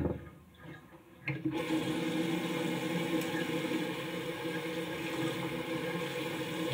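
Water running steadily in a bathroom, starting abruptly about a second in.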